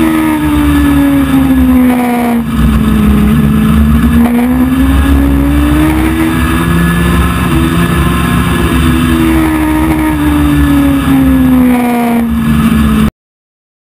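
Dwarf race car's motorcycle engine heard from inside the cockpit at racing speed, its note dropping as the driver lifts for a turn and rising again on the straight, twice over. The sound cuts off suddenly near the end.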